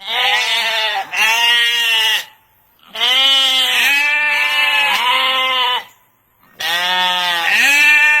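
Sheep bleating: a run of wavering bleats in three bursts of two or three calls each, with short gaps between them.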